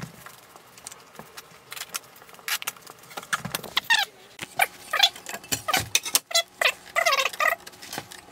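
Sped-up time-lapse audio of floor tiling: a rapid jumble of clicks and knocks from tiles and tools, with high, squeaky pitched-up voices from about halfway through.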